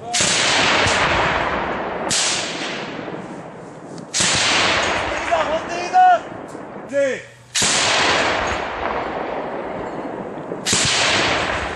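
Heavy gun mounted on a pickup truck firing single shots, five in all, two to three seconds apart, each shot a sharp crack followed by a long rolling echo that dies away over a couple of seconds.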